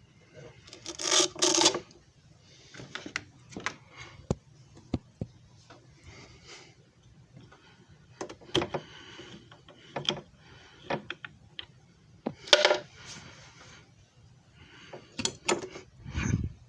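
Handling noises around a disc repair machine: scattered plastic clicks and knocks with a few short rubbing scrapes, the loudest about a second in and again near twelve seconds in.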